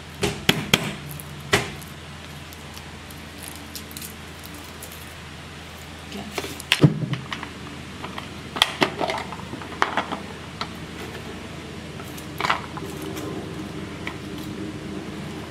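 A kitchen knife knocks on a cutting board a few times as garlic cloves are cut. Later come scattered clicks and clatters as garlic cloves and a green plastic lid are handled at a small glass chopper bowl. The loudest clatter is about seven seconds in.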